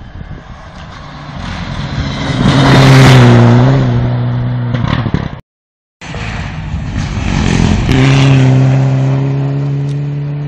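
Mitsubishi Lancer Evo IX rally car with its turbocharged four-cylinder engine driven flat out on gravel, growing loud as it passes close by about three seconds in and then falling away. After a sudden cut to silence about halfway, the car passes again at high revs a couple of seconds later and fades into the distance.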